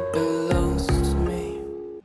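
Background pop music with a beat, fading out and cutting off at the end.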